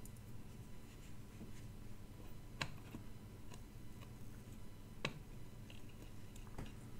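A few sparse, faint clicks and taps of plastic connectors and small circuit boards being handled and set down on a workbench, three sharper ones standing out, over a steady low hum.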